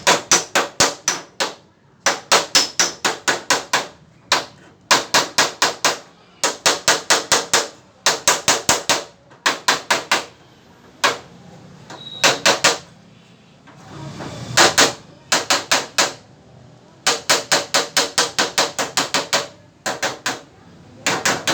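A hammer striking a car fender in quick bursts of several blows, about five a second, with short pauses between bursts: dent hammering in body repair.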